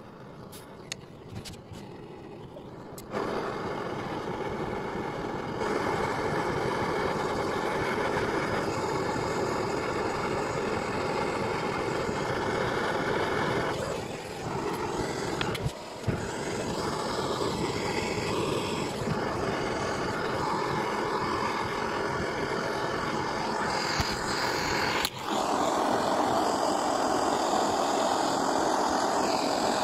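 A few clicks, then a power tool or machine motor switched on about three seconds in, running steadily with short dips, as if working a part.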